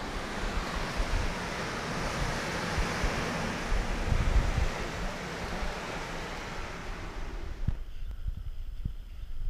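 Ocean surf washing steadily with wind buffeting the microphone. About three-quarters of the way through, the surf hiss cuts off abruptly, leaving low wind rumble and a few soft thumps.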